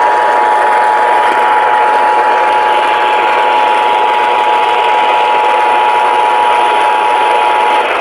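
Emergency Alert System two-tone attention signal: two steady tones sounded together, held for about eight seconds over radio static and stopping just before the end. It is the signal that announces an emergency warning broadcast.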